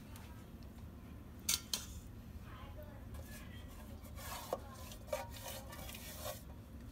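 Light metallic clinks and knocks as marinated chicken drumsticks are set onto the wire trivet in a stainless steel Instant Pot inner pot: two sharp clinks about a second and a half in, and a few more near the end.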